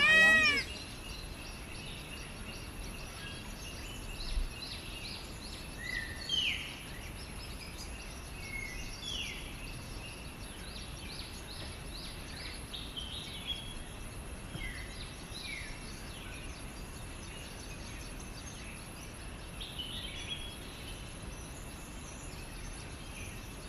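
Woodland ambience: small birds give short rising chirps every few seconds over a steady background hiss with a thin, high steady tone. In the first half second the tail of a much louder wailing call, with an arching pitch, cuts off.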